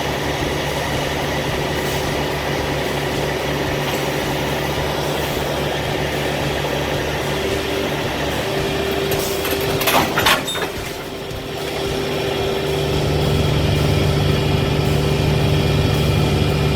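Diesel engine of heavy earthmoving equipment running steadily, with a short burst of knocks about ten seconds in. The engine grows louder over the last few seconds.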